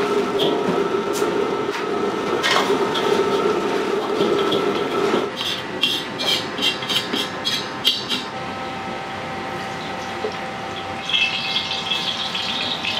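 Wok cooking at a restaurant range: a steady roar for the first five seconds or so, then a quick run of metal clanks of a ladle against the wok, about six a second, for some three seconds. Near the end a hissing sizzle starts.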